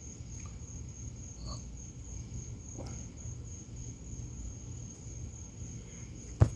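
Crickets chirping in a steady, high, pulsing trill over a low background rumble, with one sharp click a little before the end.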